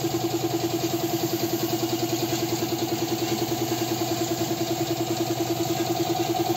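Air compressor feeding a paint spray gun, running steadily with a fast, even throb.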